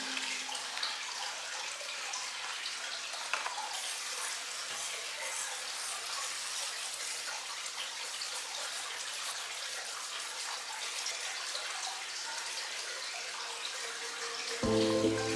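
Pressurized hand pump sprayer spraying water onto potting soil in a plastic nursery pot, a steady spray. Music comes in near the end.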